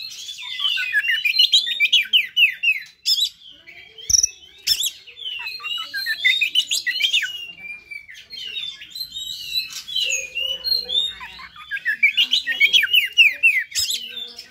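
Oriental magpie-robin (kacer) singing its agitated fighting song: fast, dense phrases of rapid falling notes, with brief pauses about three seconds in and near the middle. A couple of sharp knocks sound about four seconds in.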